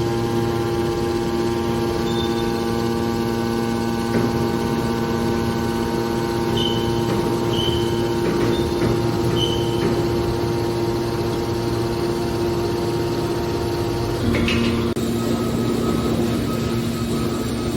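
Hydraulic metal baler running, its pump motor giving a steady hum. About fourteen seconds in, a knock and a shift in the hum's tone as the load changes.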